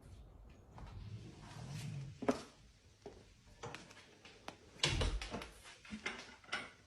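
Irregular knocks, bumps and sharp clicks, with the loudest thump about five seconds in.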